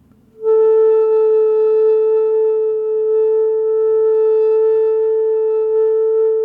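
Hitoyogiri, a short end-blown Japanese bamboo flute, holding one long steady note that starts about half a second in. The yuri is kept almost flat, with only gentle swells, as played in the grounding interseason Ichikotsu mode rather than the wide waves of spring.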